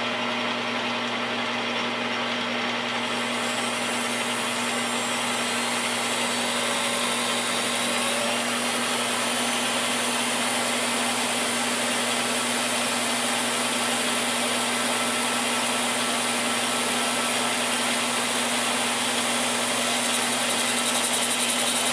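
Knockoff rotary tool fitted with a fresh abrasive cutoff disc and mounted as a lathe tool post grinder, running steadily at speed as it cuts a hardened steel dowel pin. A steady low hum lies underneath, and a brighter hiss comes in about three seconds in.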